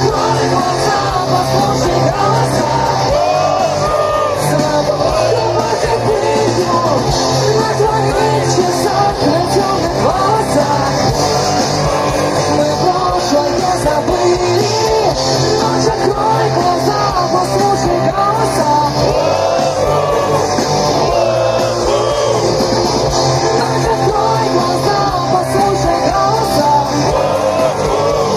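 Live rock band playing with a voice singing over the guitars, loud and continuous.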